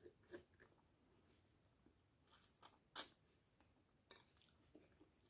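Near silence with a few faint eating sounds: soft chewing and small mouth clicks as sugar-apple flesh is eaten off a wooden spoon, the loudest a short sharp click about three seconds in.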